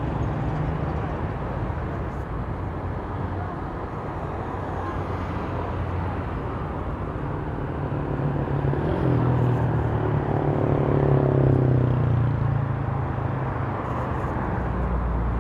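Road traffic on a multi-lane city street: steady engine and tyre noise from passing cars and motorcycles, with a louder vehicle going by about ten seconds in.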